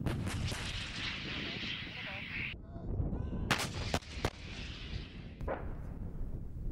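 Artillery firing and shells exploding: several sharp booms, three of them in quick succession a little past the middle, with a low rumble between them.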